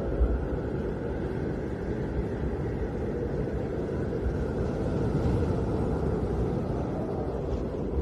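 Snowstorm wind blowing as a steady low rumble that swells a little about two-thirds of the way through.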